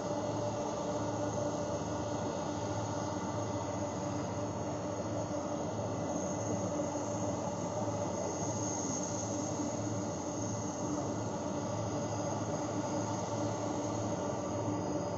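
Boeing 747-400's four jet engines at taxi idle: a steady distant whine over a low rumble, with a slight regular throb and no change.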